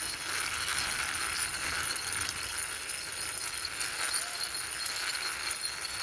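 Small plastic toy lorry pushed along by hand, its wheels rolling and rattling steadily over the surface.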